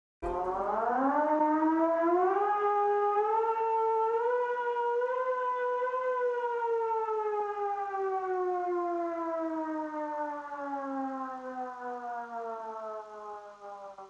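Russian civil defense siren making one long wail: the pitch climbs in small steps for about six seconds, then slowly winds down and fades.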